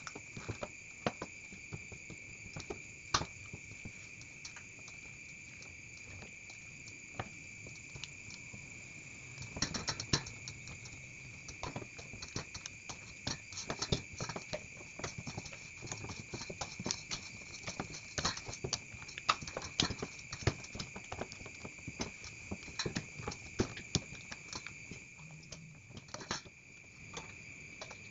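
A metal spoon clicking, tapping and scraping against a stainless steel bowl as it stirs thick, sticky sago starch gel. The taps come irregularly, busier from about ten seconds in and thinning out near the end. A steady high-pitched whine runs underneath.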